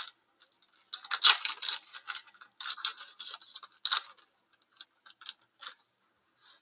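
Pokémon trading cards being handled and slid across one another: a run of quick papery scrapes and ticks that thin out to a few faint clicks after about four seconds.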